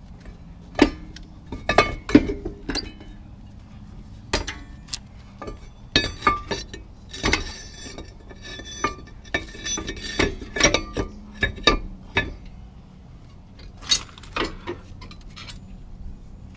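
Irregular metallic clicks and clinks of brake pads and their metal retaining clips being handled and fitted into a rear disc-brake caliper bracket, some with a brief ring.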